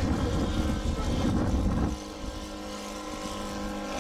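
Scale radio-controlled Piper Cub (L-4) flying overhead, its engine and propeller giving a steady drone. A heavy low rumble covers the first two seconds and stops abruptly, leaving the drone on its own.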